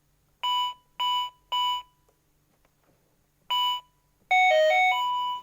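Toy ATM piggy bank's keypad beeping as the password is entered: three quick key beeps about half a second apart, a fourth about two seconds later, then a short electronic tune of several changing notes that ends on a held tone.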